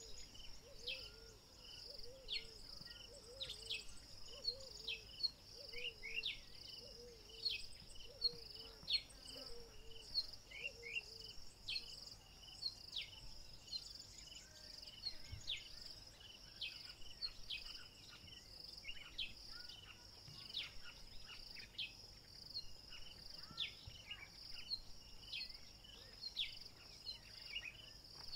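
Evening bush chorus: insects trilling steadily, with many short high chirps over it. A low wavering call repeats about twice a second and fades out about ten seconds in.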